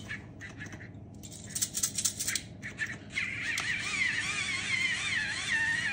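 Battery-powered electric pepper grinder crackling and clicking as it grinds. About three seconds in, its small motor starts a whine that wavers in pitch, the sign of weak batteries.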